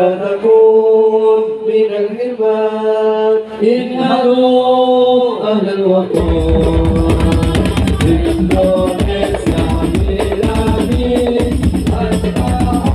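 A group of male voices sings unaccompanied sholawat. About six seconds in, the hadrah ensemble's percussion comes in all at once under the singing: bass drum, darbuka and frame drums playing a busy, driving pattern.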